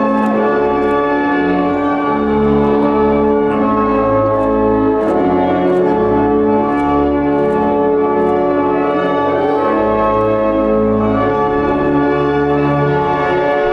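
Wedding processional music: organ playing slow sustained chords with a stepping bass line, with bright bell-like struck notes ringing over them.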